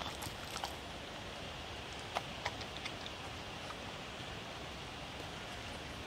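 A dog chewing diced vegetables and meat, with a few sharp crunches and mouth clicks in the first three seconds, over a steady outdoor hiss.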